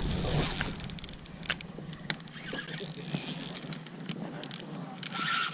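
Fishing reel being cranked, its gears whirring with scattered sharp clicks.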